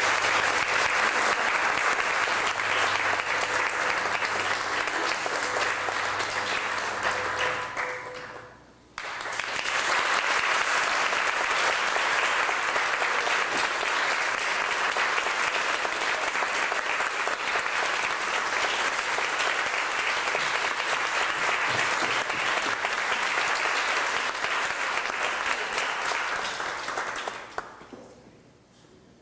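Audience applauding. It breaks off for a moment about nine seconds in, picks up again, and fades out near the end. The tail of the dance's recorded music is faintly under the first few seconds.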